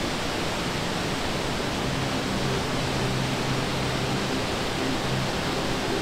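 Waterfall in heavy flow: a steady, loud rush of white water falling over rocks.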